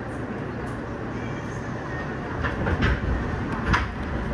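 New York subway train running, heard from inside the car: a steady rumble of wheels on rail, with a few sharp clacks from about two and a half seconds in as the wheels pass over rail joints.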